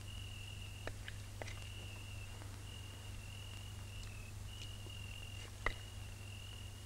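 Faint insect trilling: one high, steady note broken by short gaps, over a low steady hum from the old film soundtrack. A few soft clicks, the sharpest near the end.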